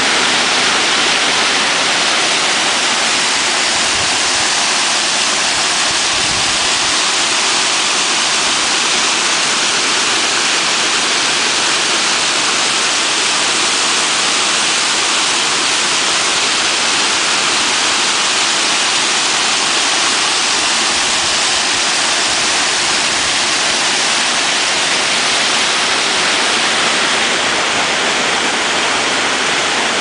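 Waterfall pouring over rock ledges: a loud, steady rush of falling water.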